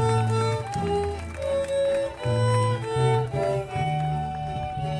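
Instrumental music: a slow, string-like melody of held notes stepping up and down over sustained low bass notes.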